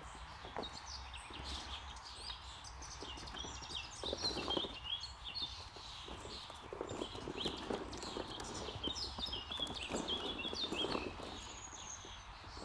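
Hollow plastic ball-pit balls clattering and rattling in a plastic shell pool as puppies climb in and dig through them, in irregular bursts of knocks.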